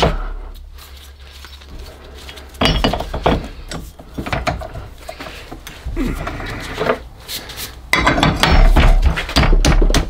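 Metal tool clatter: steel spanners clinking and knocking against the vise and the clack valve body while a spanner is fitted onto the valve seat's hex to unscrew it. It comes in short bouts, loudest and busiest in the last couple of seconds.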